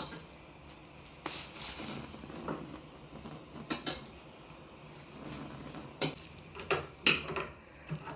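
Kitchen utensils and dishes clinking and knocking now and then while roasted poblano peppers are handled, with a few sharp clicks spread through and softer handling noise between them.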